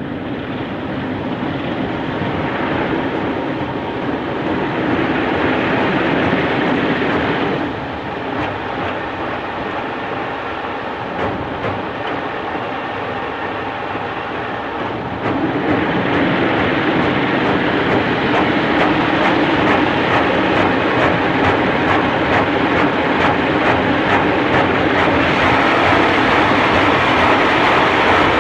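Kärcher automatic car wash brushes spinning over the car, bristles slapping and rattling against the body and glass with water spraying, heard from inside the car. The noise drops a little about a quarter of the way in, then grows clearly louder about halfway through as the brushes come closer.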